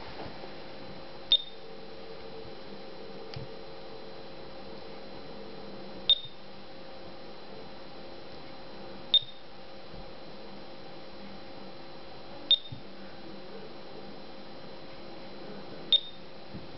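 Digital alarm clock giving five short, high beeps a few seconds apart, over a faint steady hum.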